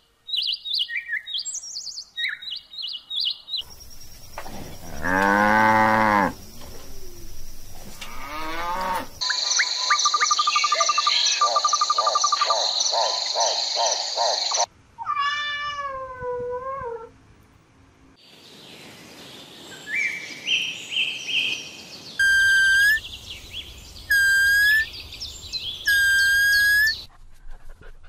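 A string of separate animal calls, one clip after another: high bird chirps at first, then several other calls, including a cat meowing.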